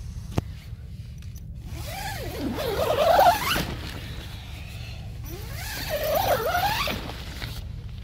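Tent door zipper pulled open in two long strokes of about two seconds each, each a rasp that rises and falls in pitch as the pull speeds up and slows. A short click comes just before the first pull.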